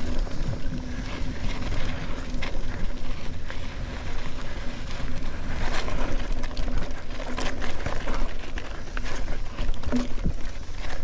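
Mountain bike rolling along a dirt single-track: steady wind rumble on the microphone and tyre noise on dirt, with frequent rattles and knocks as the bike jolts over bumps.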